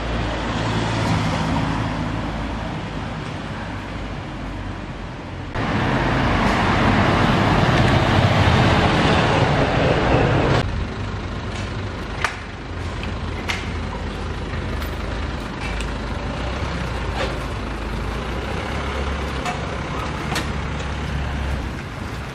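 City street traffic noise in stretches that change abruptly, with a louder rushing stretch in the middle. After that comes a steadier low hum with a few sharp clicks.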